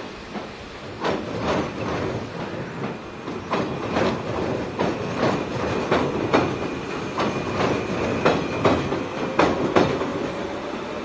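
Hokuriku Railway 8800 series electric multiple unit (ex-Keio 3000 series) rolling across a steel girder bridge, its wheels clacking over the rail joints in quick pairs over a steady rumble. A faint rising whine comes in near the end.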